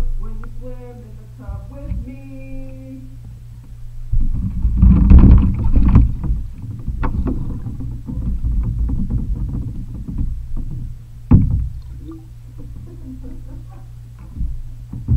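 Bathtub water sloshing and splashing around a submerged waterproof camera, heard muffled through its own microphone over a steady low hum. The sloshing is loudest about four to six seconds in, with a few sharp knocks later on.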